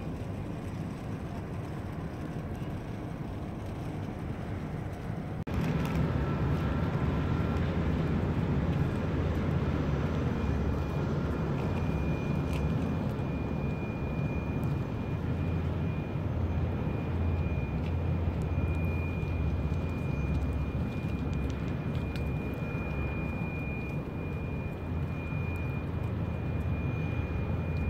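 Steady low engine rumble of a river bus catamaran passing on the river. The rumble gets louder suddenly about five seconds in, and a thin steady high whine is held from about ten seconds in until near the end.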